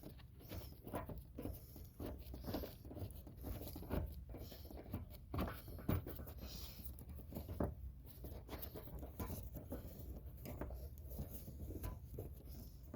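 Irregular clicks, knocks and scraping rustles of hand-tool work as a screw holding a car's front light fixture is worked loose from under the bumper.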